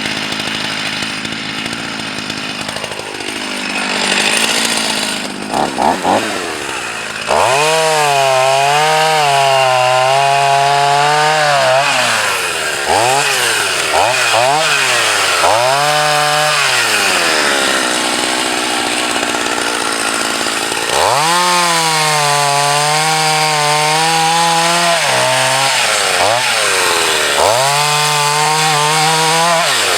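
Husqvarna 44 two-stroke chainsaw bucking a log. It revs up to full throttle about a quarter of the way in, its engine note sagging and picking up again several times as the chain bites the wood. It drops off around the middle, then cuts again.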